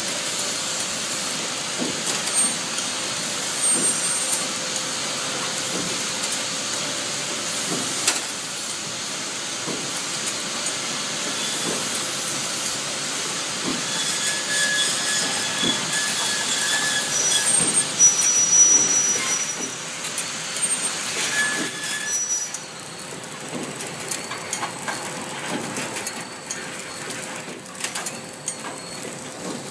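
Plastic fork packing machine running: a steady mechanical clatter over a constant hum, with scattered knocks. Thin high squeals come and go through the middle, and the noise drops to a lower level about three-quarters of the way through.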